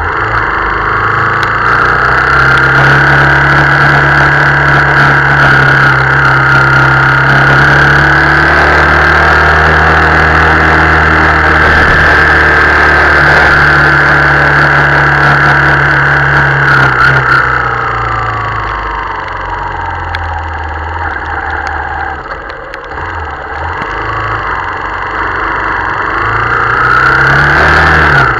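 Motorcycle engine under way in heavy rain, heard from the bike itself. It pulls up to a steady pitch and holds it for about fifteen seconds, then falls away as the bike slows and runs low for a few seconds, and rises again near the end. A constant hiss of wind and rain runs under it.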